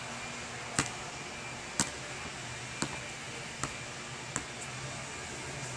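A basketball bouncing on an outdoor asphalt court, sharp knocks about once a second, loudest about two seconds in and fainter after, over a steady low hum.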